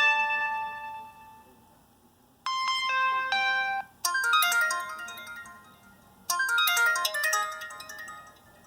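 Preloaded Samsung Instinct ringtone playing: short melodic phrases of chiming electronic notes, each phrase starting sharply and dying away before the next begins, about every two seconds.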